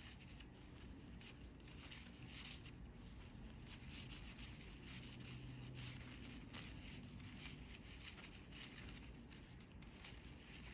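Faint rubbing and light clicking of metal knitting needles and yarn as stitches are worked in rib.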